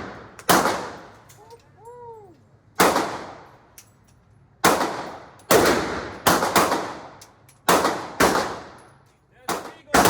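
About ten gunshots fired at an uneven pace, some in quick pairs, each followed by a long echoing decay.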